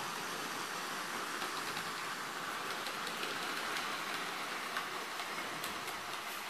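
Hornby OO gauge model BR Standard Class 9F 2-10-0 locomotive and its freight wagons running on the track: a steady hiss of wheels and motor, with faint clicks now and then.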